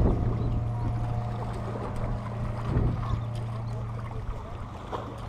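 A steady low drone runs throughout, with the rumble of wind on the microphone beneath it.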